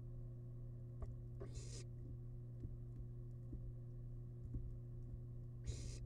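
Two short, high hissing calls from barn owl chicks, the snoring hiss nestlings give when begging: one about a second and a half in and one near the end. Under them run a steady low electrical hum and faint scattered taps and ticks from the nest.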